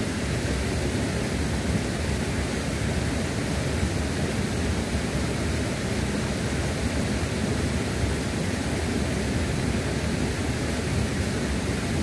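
Water at a waterfall rushing steadily, an even noise that does not change.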